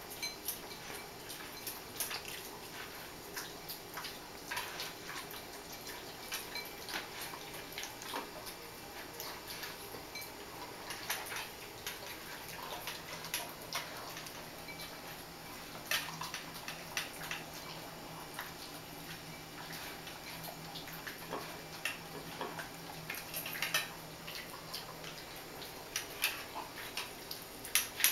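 Dog eating dry kibble from a ceramic bowl: irregular crunching and clicks of kibble and muzzle against the bowl, continuing throughout.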